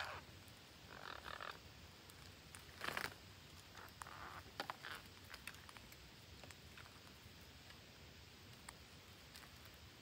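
Faint rustling of leaves and twigs with scattered sharp clicks as parakeets clamber and nibble in a leafy bush, busiest in the first half.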